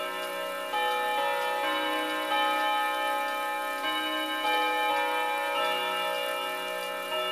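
ODO 36 eight-hammer carillon clock playing its chime melody: hammers striking tuned chime rods, a new note every half second to a second, each ringing on under the next.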